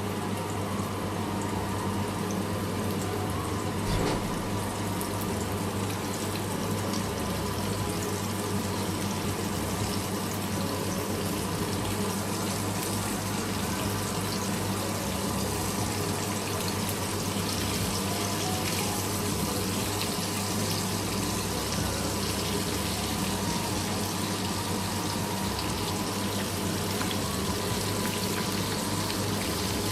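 Water running steadily, like a kitchen tap, with a single knock about four seconds in.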